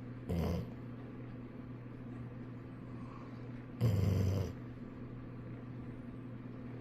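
Golden retriever snoring in its sleep: a short snore near the start and a longer, louder one about four seconds in, over a steady low hum.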